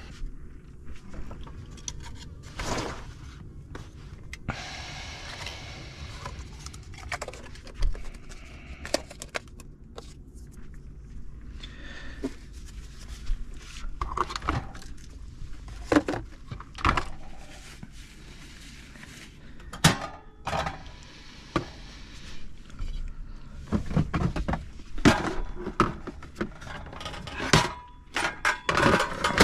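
Objects being handled and set down: a run of irregular knocks, clicks and light rattles, busiest near the end, with a brief hiss about five seconds in.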